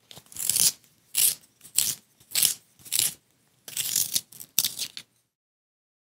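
A pencil turning in a manual pencil sharpener, its blade shaving the wood in about eight short grinding strokes, one turn after another, stopping about a second before the end.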